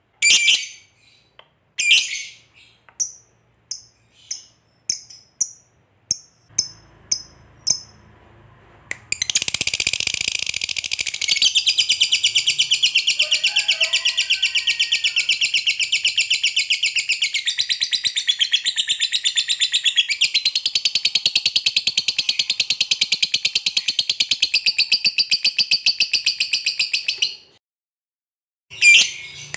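Lovebird giving short sharp chirps that come faster over the first several seconds, then breaking into a long, continuous, rapid high-pitched chatter (the 'ngekek panjang' song) for about eighteen seconds, which stops suddenly, followed by one more chirp near the end.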